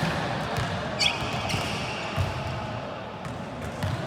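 Volleyball play: the ball being hit and bouncing with sharp knocks, a high squeak about a second in, over a steady murmur of voices.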